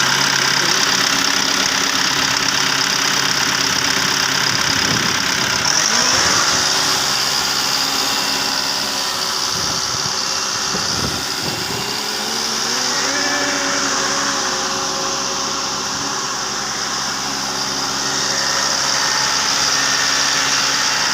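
The engine of a Marais machine running steadily at idle after being started. Its speed shifts slightly a couple of times around the middle.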